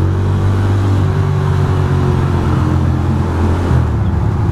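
Ducati Monster's V-twin engine running steadily under way, its note shifting briefly about a second in and again near the end, with wind rushing over the rider's microphone.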